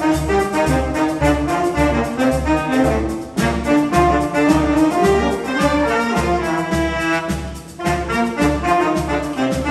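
Jazz big band playing: trumpet, trombone and saxophone sections together in full ensemble, over a steady low beat about twice a second. The horns break off briefly twice, about a third of the way in and again near the end, then come back in.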